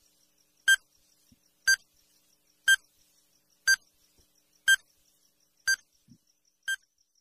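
Countdown timer sound effect: a short electronic beep once a second, seven times, over a faint quick ticking.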